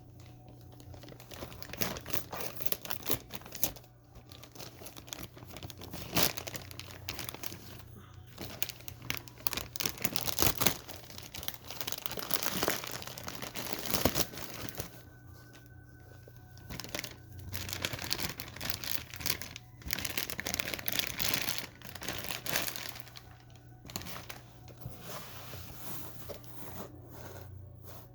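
Packaging being unwrapped by hand: irregular crinkling, rustling and tearing that come and go in spells.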